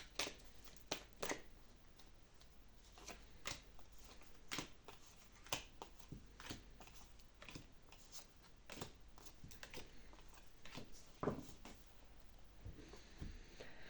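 A tarot deck being shuffled by hand: a string of short, soft card snaps, roughly one a second, with a somewhat louder one near the end.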